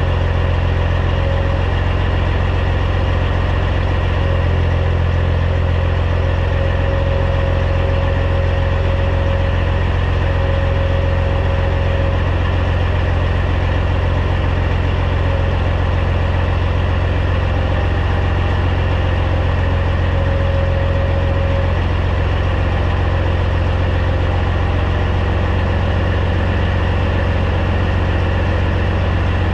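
Caterpillar C15 diesel engine of a Peterbilt 379 semi truck running steadily at low revs, a deep even drone, with a mid-pitched whine that comes and goes every few seconds.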